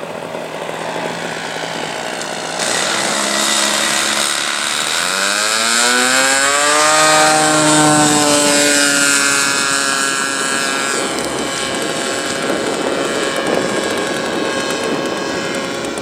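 Engine of a large RC scale model Piper Cub rising steeply in pitch as it throttles up for the takeoff run. It then falls slowly in pitch as the model passes and climbs away.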